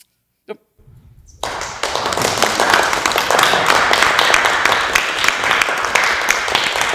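Audience applauding, beginning about a second and a half in and keeping up steadily.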